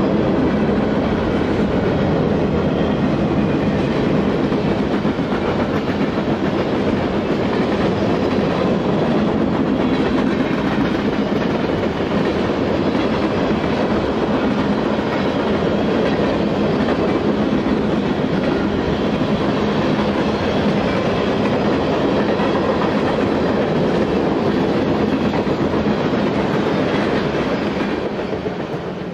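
Freight cars of a long mixed freight train (tank cars, boxcars and hoppers) rolling steadily past, their steel wheels rumbling and clicking on the rails. The sound eases slightly near the end.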